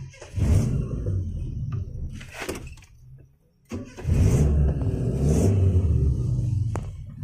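Off-road 4x4 engine running hard under load on a rough trail, in two loud stretches of about three seconds each, split by a brief near-silent gap about three seconds in.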